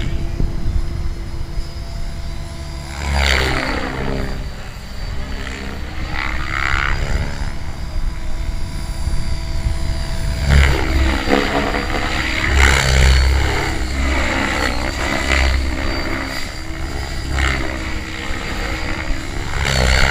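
Compass 7HV electric radio-controlled helicopter flying: a steady whine of motor and rotor blades that rises and falls in pitch several times as it manoeuvres.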